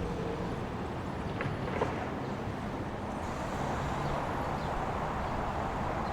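Steady outdoor street ambience with the rumble of passing traffic, and a couple of short clicks just under two seconds in.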